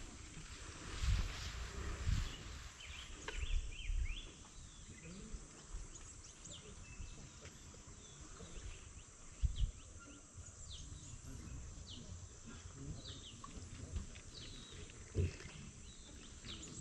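Outdoor ambience with many short, falling bird chirps scattered throughout, and a few low thumps, the clearest about a second, two seconds and nine and a half seconds in.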